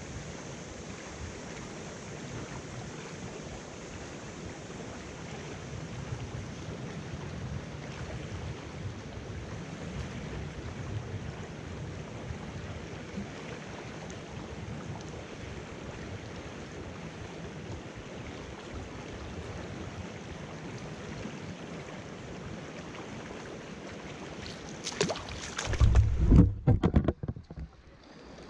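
Shallow river water rushing steadily over a rocky riffle. Near the end, a few seconds of loud bumps and knocks as the camera is picked up and handled.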